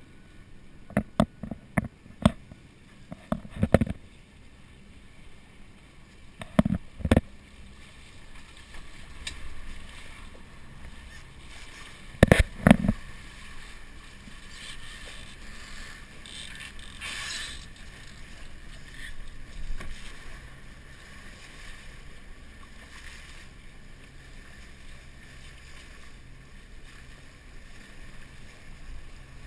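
Steady wash of water and wind around a sailing catamaran under way, broken by several sharp knocks, a cluster in the first few seconds and the loudest pair about twelve seconds in.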